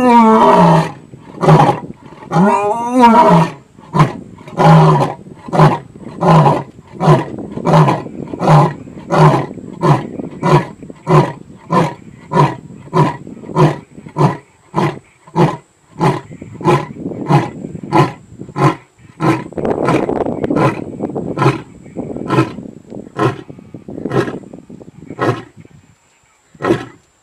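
Male lion roaring, loud: two long drawn-out roars, then a long series of short grunting roars about one and a half a second that slowly weaken and die away near the end.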